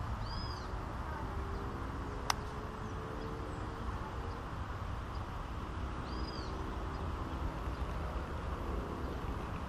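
Wind buffeting the microphone as a steady low rumble. A bird gives a short chirp twice, once near the start and again about six seconds in, and there is a single sharp click a little over two seconds in.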